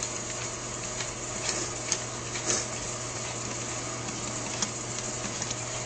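A few faint, short clicks and taps from hand work on a Holley 4000 four-barrel carburetor as a long bolt is started into the assembly, over a steady background hiss and hum.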